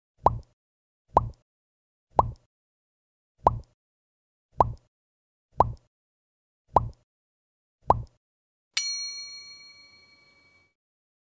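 A cartoon-style 'plop' sound effect repeated eight times, about once a second, with silence between. Near the end comes a single bell-like ding that rings out over about two seconds.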